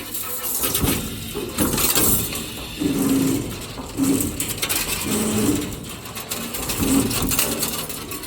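CNC rebar stirrup bending machine at work: short motor whines and metallic clinking and clatter of bar steel, repeating in cycles about once a second.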